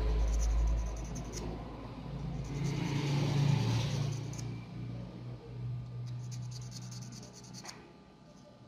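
Sandpaper scratching on the small metal contacts of a hair clipper's on/off switch in irregular rubbing strokes, scouring off the corrosion that was breaking the current to the clipper.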